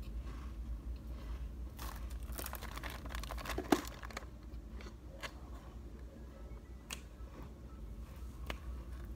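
Clear plastic snack bag crinkling and rustling as it is handled, densest about two to four seconds in with one sharp tap among it. A few light knocks follow.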